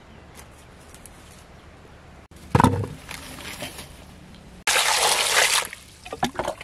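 Water poured into a metal pot of peeled daikon radishes: a short, loud rush of water about five seconds in, followed by a few splashes. Earlier, about two and a half seconds in, there is a single thump as the pot or the daikon is set down.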